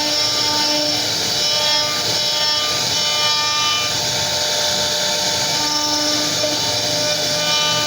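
CNC router spindle running and cutting into wood: a steady whine with the rasp of the bit carving.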